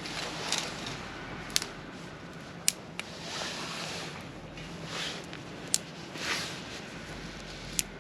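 Small wood fire crackling in a mini fire stand: sharp pops every second or two over a soft rushing hiss that swells and fades.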